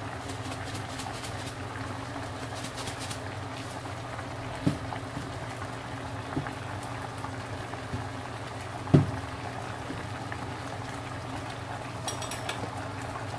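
Balbacua broth boiling in a stainless steel pot on a stove, bubbling steadily over a constant low hum. A few dull knocks come through, the loudest about nine seconds in.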